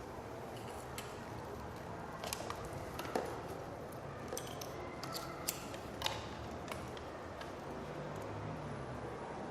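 A few sharp, separate clicks and snips, about eight in all between two and seven seconds in, over steady low background noise.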